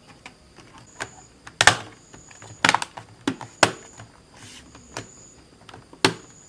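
Sharp plastic clicks and knocks, about seven in irregular succession, as the laptop's parts and covers are handled and pressed back together.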